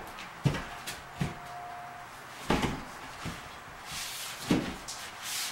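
A piece of fire-rated drywall board being handled and fitted into a wall opening: a handful of dull knocks and bumps, irregularly spaced, with some scraping as the board is pushed into place.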